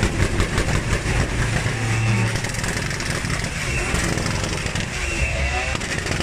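Toyota Supra engine revving hard at high rpm during a burnout, with a fast pulsing in the first second or so. People talking over it near the end.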